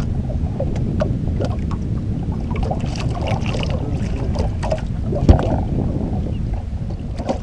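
Steady low rumble of an aluminum fishing boat slowly trolling, with wind on the microphone. Scattered light clicks and one sharp knock about five seconds in.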